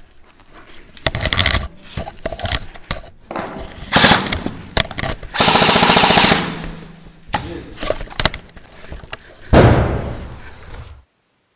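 Airsoft gun firing: scattered single shots, then rapid full-auto bursts, the longest lasting about a second in the middle. The sound cuts off suddenly just before the end.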